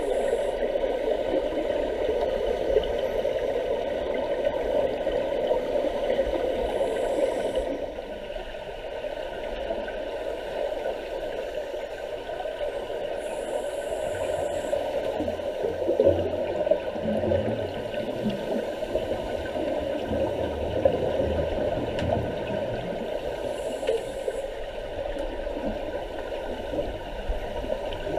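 Muffled, steady underwater noise picked up by a camera submerged in a swimming pool, with the hiss and gurgle of scuba divers' exhaust bubbles. It drops in level about eight seconds in.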